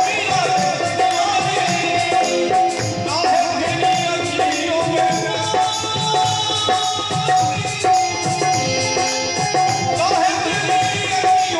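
Live Indian devotional folk music: harmonium and keyboard carrying the melody over a steady hand-drum rhythm, with a singing voice.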